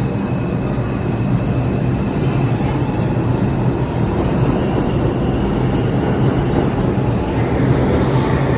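New York City subway 2 express train leaving the station: steady, loud running noise of wheels on rail and traction motors, with a low hum.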